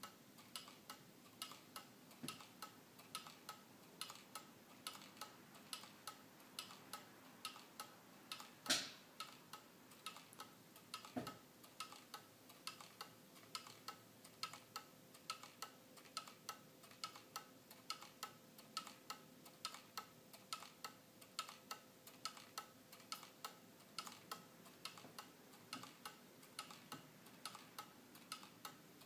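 Vintage Tezuka owl wall clock, a weight-driven pendulum clock with rolling eyes, ticking with a steady, even tick-tock. One louder knock comes about nine seconds in.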